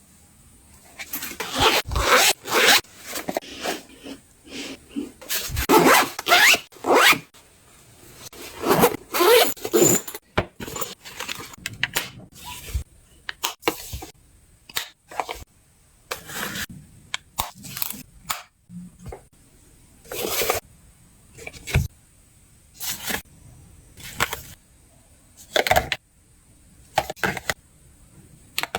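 Luggage being packed by hand. Zippers are pulled on bags and pouches, and items rustle and scrape as they are handled and set in, in a string of short separate strokes.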